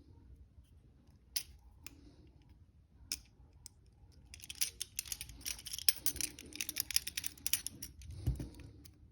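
Handcuffs being picked: a couple of sharp metallic clicks, then a dense run of rapid small clicks and scraping from about four seconds in as a tool works the lock, ending with a dull knock.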